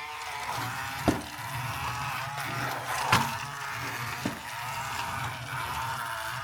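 Steady background music with three sharp knocks or clicks over it, about one, three and four seconds in, the first two the loudest.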